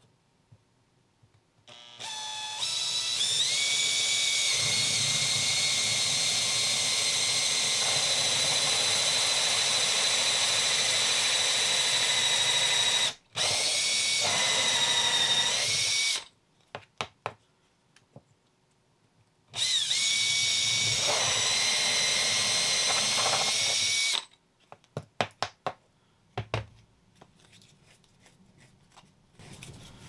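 Cordless Makita drill spinning a hole saw through a panel into a wood block, in three runs. The first run starts with a rising whine as it spins up and lasts about ten seconds, and two shorter runs follow. Scattered clicks and taps come near the end.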